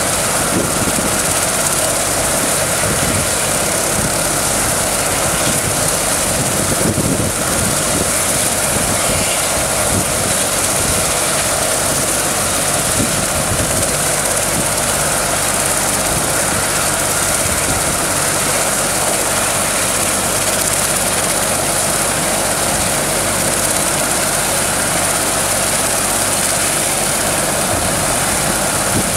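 A twin-engine medical helicopter's turbines running steadily with the main rotor turning, giving a constant high whine over a steady rush.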